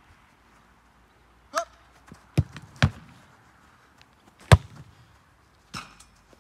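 A football being struck in a goalkeeper drill: four sharp thuds of kicks and catches, two close together about two and a half seconds in, the loudest about four and a half seconds in, and a last one near the end.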